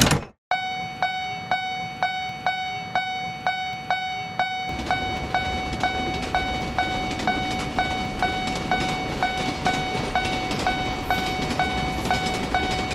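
Japanese railroad crossing alarm ringing its steady 'kan-kan' at about two strikes a second, and from about five seconds in a train passing with a rumbling noise under the bell.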